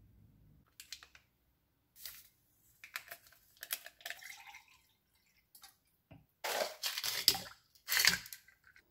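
Drink being made in a tall glass. Powder is tipped from a stick pack, then liquid is poured in with a briefly rising pitch as the glass fills. Near the end, ice cubes are scooped from a plastic container and clatter into the glass in two loud spills.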